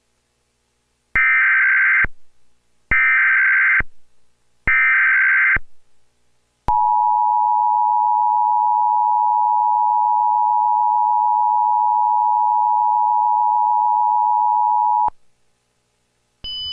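Emergency Alert System tones: three short bursts of SAME header data, each about a second long, then the steady two-tone EAS attention signal held for about eight seconds before cutting off.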